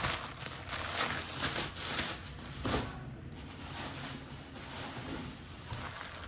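Intermittent rustling and crinkling of packing material being handled, with a few louder crackles in the first three seconds.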